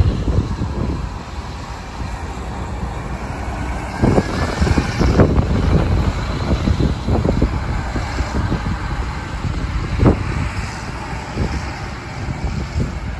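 A bus driving past, louder about four to six seconds in, with wind buffeting the microphone.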